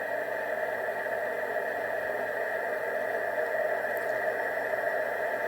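Steady hiss of a 9 cm amateur radio receiver's audio output, noise heard through its narrow speech passband. It grows slightly louder about three and a half seconds in, the rise in noise that marks the dish picking up the sun.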